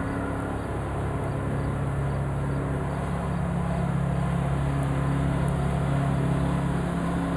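Steady low mechanical hum of a running motor, with a few held low pitches, growing slightly louder about halfway through.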